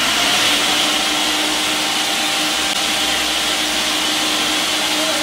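Countertop blender running steadily at high speed, puréeing soaked California chiles in water into a red salsa. It is a loud, even motor whir with a constant hum.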